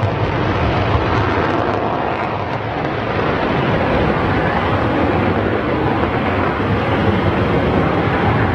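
F-15E Strike Eagle's twin jet engines running in afterburner on the takeoff roll: loud, steady jet noise.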